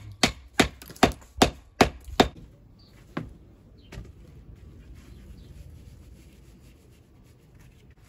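Hammer blows on stone in a quick, even run of about seven strikes over two seconds, then two more single knocks and faint handling noise.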